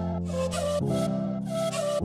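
Background music: a melody over held chords, with a light regular beat of high hiss; the chords change a little under a second in.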